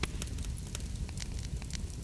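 Fireplace crackling: scattered sharp pops over a low steady rumble of the flames.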